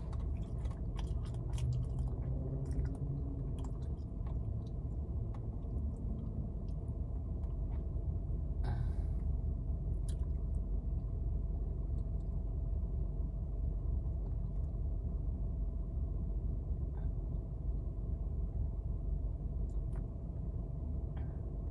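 Close-up chewing of food with wet mouth clicks, most of them in the first few seconds, over a steady low rumble in a car cabin. A short rustle about nine seconds in.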